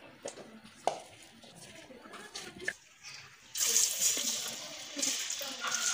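A sharp knock about a second in. Then, about three and a half seconds in, flour-coated potato fries are dropped into hot oil in a wok and start sizzling loudly and steadily.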